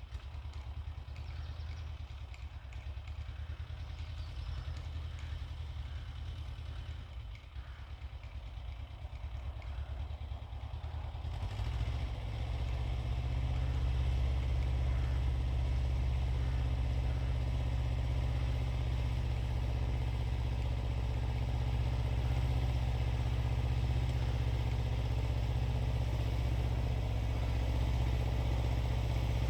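Xingtai 220 mini tractor's diesel engine running steadily, growing louder about twelve seconds in and then holding steady.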